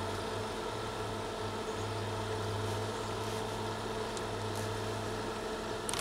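Outsunny 12-volt compressor fridge-freezer running, a steady low hum from its compressor.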